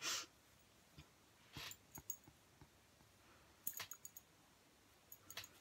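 Faint rustling and small clicks of fingers running through short hair, in a few brief bursts.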